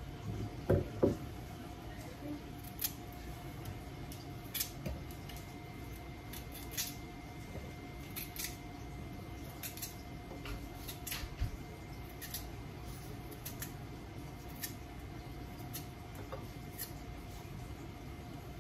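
Kitchen knife cutting slices off a raw carrot held in the hand, a series of short crisp clicks every half second to a second as each piece is cut off. Two louder knocks about a second in, over a faint steady hum.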